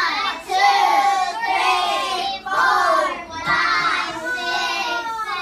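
A class of young children counting aloud in unison, chanting one number after another in a sing-song chorus.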